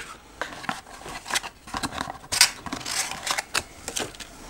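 Unboxing handling noise: small cardboard boxes and plastic-wrapped contents being handled, giving irregular light clicks, taps and rustles, with a sharper click about two and a half seconds in.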